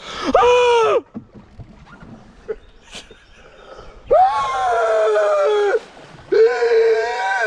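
Men's voices giving loud, drawn-out howls in imitation of an animal call, a mock call for the Ozark Howler. A short rising-and-falling howl comes at the start. A longer held howl comes about four seconds in, and another about six seconds in.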